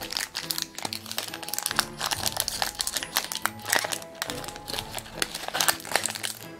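Foil wrapper of a Pokémon TCG booster pack crinkling and tearing as it is ripped open by hand, a dense run of sharp crackles, over quiet background music.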